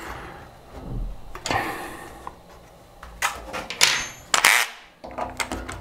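Metal tools and parts being handled on an aluminium printer frame: a brief rustle, then several sharp clicks and knocks in the second half.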